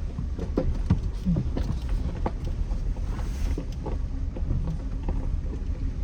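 2007 Jeep Wrangler JK driving over a rough trail, heard from inside the cabin: a steady low rumble with scattered knocks and rattles.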